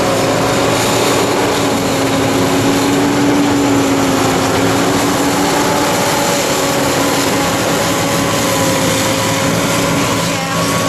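Tracked combine harvester running steadily while harvesting soybeans with its unloading auger out: a loud, constant machine drone with a steady hum.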